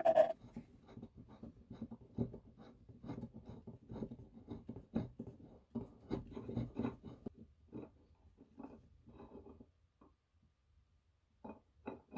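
Irregular light scratching and small clicks of metal on the rusty parts of an old vice being handled, quick and busy at first, then sparser, with a short lull before a few last clicks near the end.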